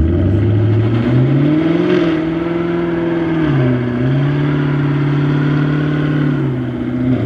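Car engine revved and held at high revs during a burnout. The pitch climbs and holds, dips briefly about three and a half seconds in, climbs back and holds again, then falls away near the end.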